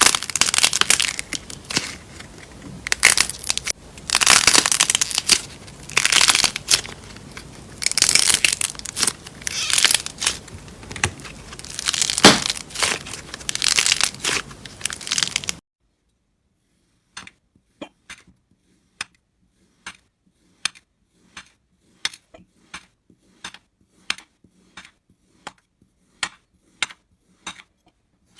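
Crunchy slime being squeezed and pressed, crackling and crunching in repeated bursts of a second or two. After a sudden cut about halfway through, sharp separate clicks come about twice a second.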